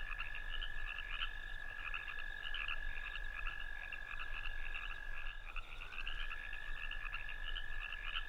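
Evening chorus of calling frogs: a long, steady high trill that breaks off about five and a half seconds in and starts again with a slight rise in pitch, over quicker pulsing chirps.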